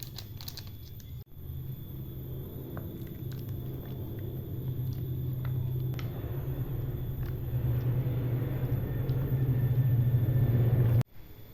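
Steady low rumble of a pot heating on a gas stove, slowly growing louder and cutting off suddenly near the end, with a few faint clicks.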